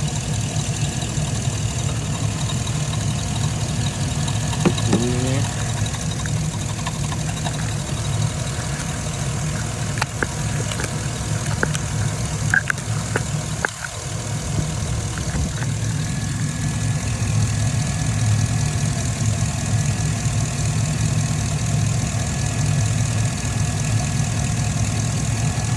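Chevrolet Tahoe engine idling steadily, with a few light clicks and taps around the middle.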